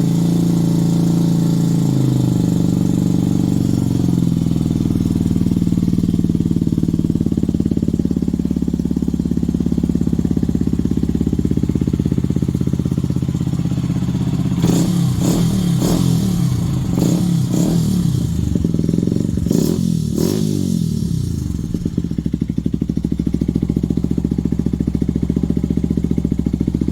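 Benelli TNT 125's single-cylinder engine idling, then revved in a run of quick throttle blips through the middle before it drops back to a steady idle.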